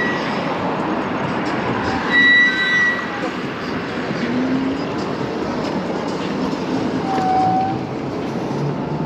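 Steady road and air noise of an e-bike riding along a city street with traffic around, with a brief high squeal about two seconds in.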